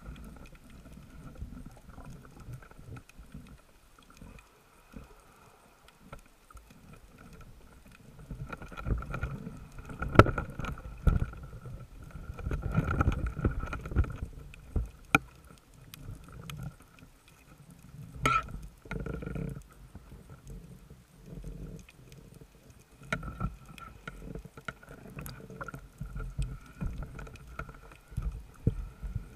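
Muffled underwater sound picked up inside an action camera's waterproof housing: low rumbling and scattered knocks and clicks as a speared fish is handled on the spear shaft, the sharpest knock a little past halfway. A faint steady high tone runs underneath.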